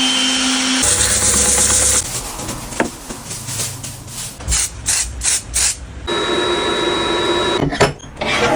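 Wood lathe turning a zelkova burl in several short cuts: a steady machine hum alternates with the tool scraping and rubbing against the spinning wood, with a quick run of scraping strokes about halfway through.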